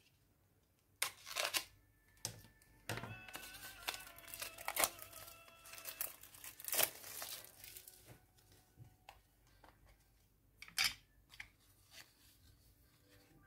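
Plastic packaging of a new stamp ink pad being cut with scissors and pulled open: irregular crinkling, tearing rustles and sharp snaps, the loudest about a second in and again near eleven seconds.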